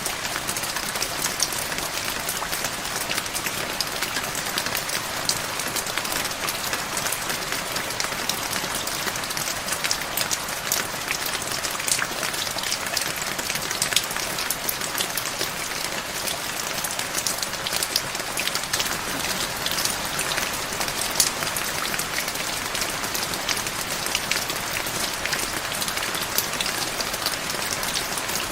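Steady rain falling, a dense even hiss dotted with many sharp individual drop hits.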